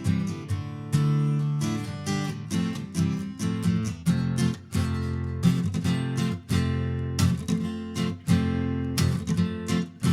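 Acoustic guitar strummed in a steady rhythm, playing a song's instrumental introduction.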